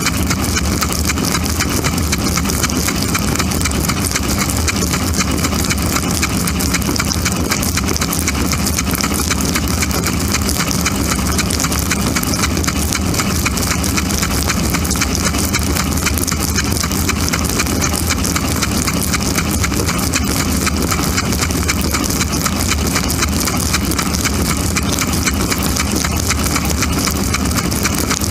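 Dishwasher running, heard from inside the tub: water from the spray arms drumming steadily on dishes and walls over the steady hum of the wash pump motor.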